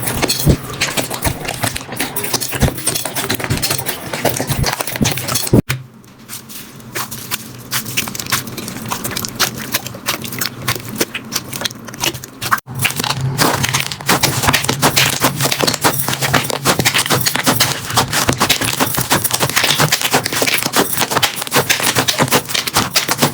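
Slime being squeezed and pressed by hand, a dense run of crackling and popping. The sound breaks off sharply twice, about six and about thirteen seconds in, and starts again with a new clip.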